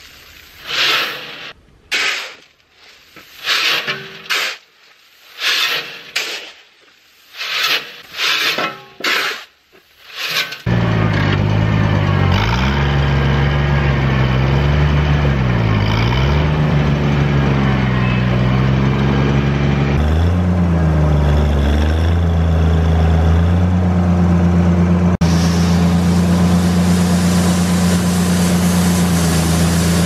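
A steel scoop shovel scraping and lifting spilled shelled corn off gravel, in strokes about one a second. About ten seconds in, a tractor engine comes in loud and runs with its speed rising and falling several times, then holds steady at a higher speed near the end.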